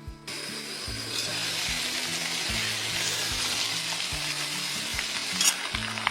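A steady hiss that comes in about a second in, under background music with a slow, repeating bass line.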